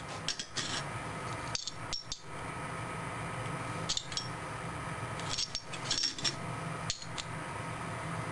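Ceramic pin-grid CPU packages with gold-plated lids clicking and scraping against each other and the firebrick as they are picked up and gathered by hand: scattered light clicks in small clusters over a steady background hum.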